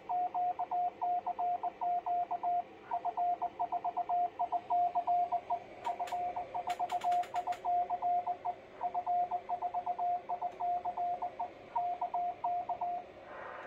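Morse code (CW) from a homebuilt one-transistor BD139 40 m QRP transmitter, heard as a single keyed tone sent in quick dits and dahs with a couple of short pauses. A few sharp clicks sound about six to seven seconds in. The builder says the signal has a small chirp.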